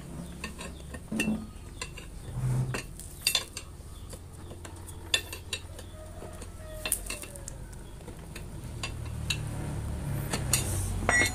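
Metal tyre levers clinking and scraping against the rim of a Yamaha Mio scooter's rear wheel while the tyre bead is pried over the rim, in scattered sharp clicks and knocks.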